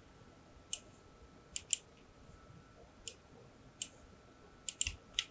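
Computer mouse clicking: about eight short, sharp clicks at irregular intervals, some in quick pairs.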